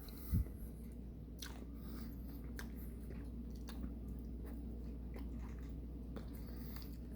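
A person chewing a soft, sticky microwaved marshmallow Peep, with faint wet clicks of the mouth. A low thump comes just after the start.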